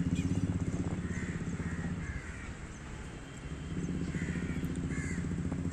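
Crows cawing several times, over a low steady engine-like rumble that fades about two seconds in and comes back near the end.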